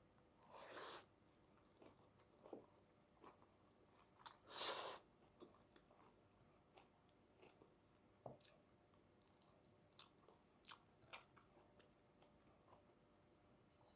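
Faint close-up eating sounds: a mouthful of rice and greens being chewed, with scattered small wet clicks and two louder brief noisy swells, about a second in and about four and a half seconds in.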